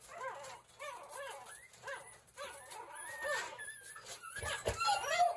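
Four-day-old puppy crying in a run of short squeaks that rise and fall, about two or three a second.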